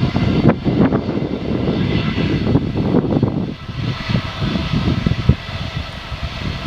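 Airliner engines running loud, a deep uneven rumble with faint steady whining tones above it.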